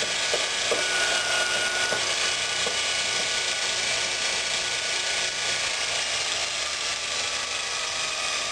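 Multitool belt grinder running steadily, its abrasive belt whirring over the wheels, with a few light knocks in the first three seconds as the tensioner assembly is tapped to shift the belt's tracking.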